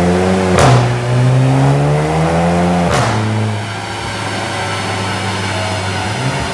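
Volkswagen Golf 7 GTI's turbocharged 2.0-litre four-cylinder running on a dyno, revving up through two gears. Each upshift brings a sharp exhaust crack, about half a second in and again about three seconds in. After the second shift it holds a steady, lower drone.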